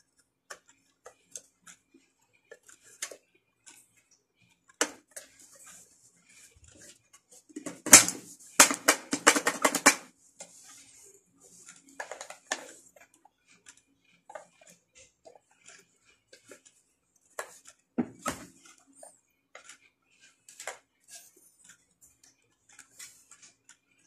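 Clicks, knocks and clatter of vacuum-cleaner housing parts being handled and fitted together as the handle, push-button switch and cable handle go back on, with a burst of louder rattling about a third of the way in and another knock a little later.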